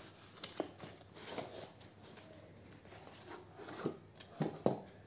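Cardboard shipping box being handled and opened and the phone's retail box slid out of it: scattered rustling and scraping of cardboard with a few light taps.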